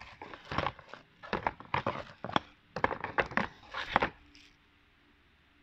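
Handling noise close to the microphone: an irregular run of knocks, clatters and rustles from objects being moved on a desk, stopping about four seconds in.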